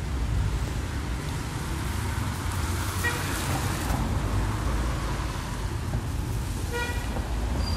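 Steady street traffic rumble, with a vehicle passing about three seconds in and a short horn toot near the end.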